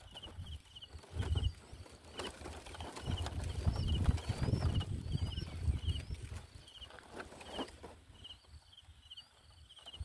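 Low rumbling and rustling around a zebra dove's nest, loudest in the middle, over a steady high chirping repeated about twice a second and a few short rising bird calls in the middle.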